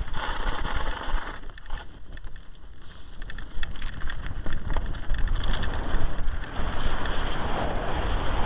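Mountain bike running fast downhill on a gravel track: tyres crunching and the bike rattling with frequent small clicks and knocks, under wind rumbling on the microphone. The noise eases for a couple of seconds early on, then comes back as loud.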